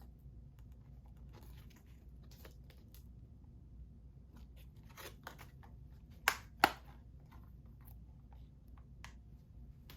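Plastic Blu-ray case and its wrapping being handled: scattered soft crinkling and rustling of plastic, with two sharp clicks half a second apart a little past the middle, as of the case being snapped open.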